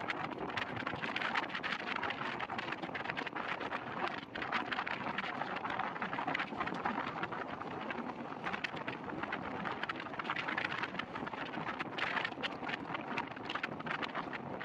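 Moving passenger train heard from beside its coach: a steady rush of wheels running on the track with a dense clatter. Wind buffets the microphone.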